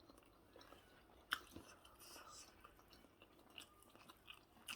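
Faint chewing and mouth clicks from eating fried plantain and egg, with one sharp click about a second in and a few softer ones near the end.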